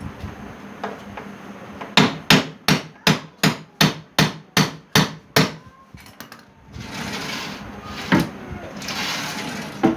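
A hammer striking wood about ten times in quick, even succession, close to three blows a second, as in nailing during a furniture repair. This is followed by a stretch of scraping noise with two single knocks.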